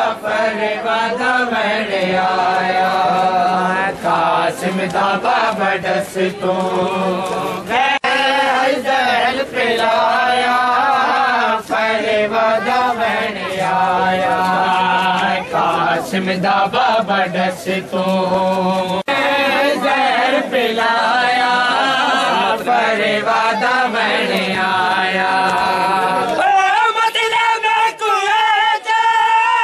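A noha, the Shia lament for Qasim, chanted by a crowd of male mourners, with the slaps of matam, hands beating on bare chests, along with the chant.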